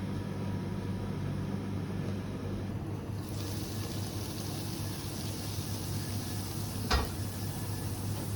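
Kitchen background: a steady low machine hum, with a hiss joining about three seconds in and one sharp click near the end.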